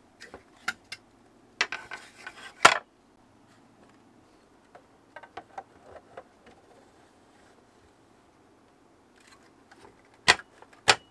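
Hard plastic toy parts and packaging being handled: a series of sharp clicks and knocks, with a short spell of rustling ending in a loud click about two and a half seconds in, faint ticking in the middle, and two loud clicks near the end.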